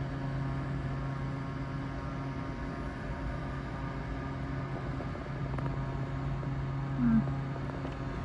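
A steady electrical hum running unchanged.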